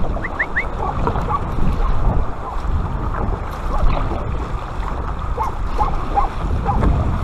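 Wind rumbling on the microphone over water washing and splashing along the hull of an Aqua Marina Betta inflatable kayak as it is paddled. Three short rising chirps come about half a second in.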